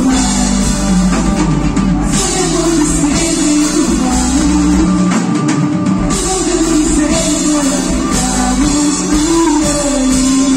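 Live pop-rock band playing a song, with the drum kit to the fore over guitars and keyboards. The bass drops out briefly about halfway through.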